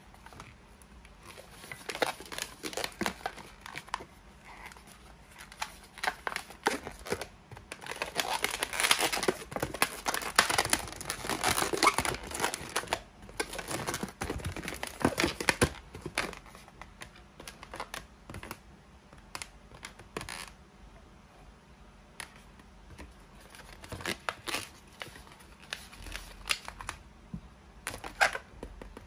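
Inflated latex modelling balloons rubbing against the hands and each other as they are twisted and bent into shape. The sound comes in irregular runs of short scrapes and clicks, busiest in the middle.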